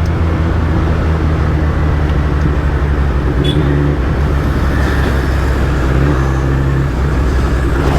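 Suzuki Hayabusa's inline-four engine running steadily at a low cruising speed, under steady road and wind noise. Its note drops slightly about halfway through.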